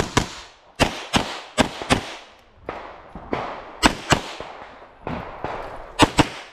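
Semi-automatic pistol fired rapidly through a USPSA stage: about a dozen sharp shots, mostly in quick pairs a fraction of a second apart, each with a short echoing tail.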